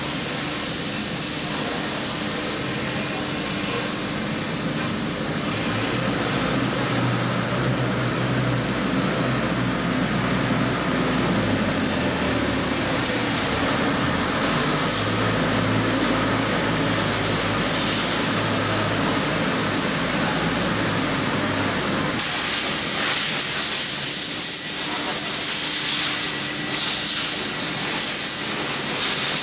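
CNC router spindle running while its end mill cuts into a styrofoam block: a steady machine noise with a hiss over a low hum that shifts in pitch. About 22 seconds in it changes abruptly to a brighter, hissier noise and the low hum drops away.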